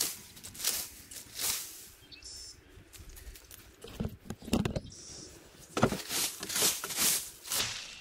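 Plastic leaf rake scraping dead leaves and debris over dry grass and soil in repeated strokes, about two a second. The strokes pause in the middle, where a few sharp knocks are heard, then start again.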